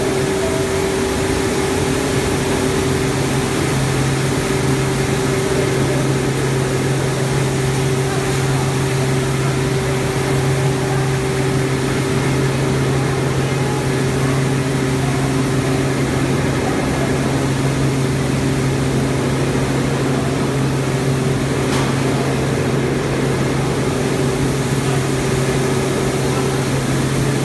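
Small rice milling line running, its machines making a loud, steady mechanical drone. Two steady hum tones, one low and one higher, sit over a dense even noise, with no change throughout.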